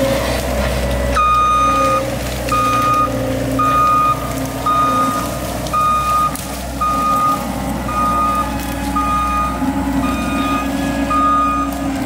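Compact track loader's engine running steadily. From about a second in, its backup alarm beeps about once a second with a single steady tone, which signals that the machine is reversing.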